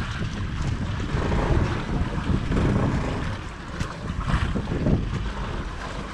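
Wind buffeting the microphone over the wash of waves against a small outrigger boat's hull, with a steady low rumble.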